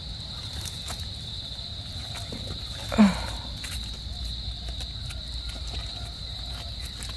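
Steady high-pitched chirring of night insects, with faint scraping ticks from a small knife cleaning soil off a mushroom stem. One short vocal sound about three seconds in.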